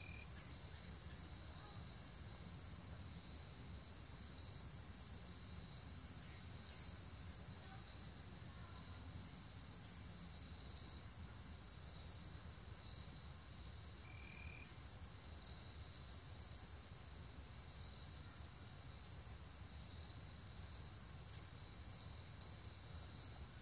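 Steady chorus of insects such as crickets: a continuous high-pitched drone on two pitches, over a faint low rumble.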